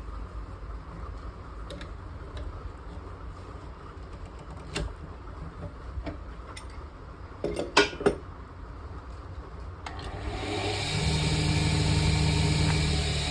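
A few clicks and knocks, the loudest two close together near the 8-second mark. About ten seconds in, a woodturning lathe's motor starts and runs up to a steady hum.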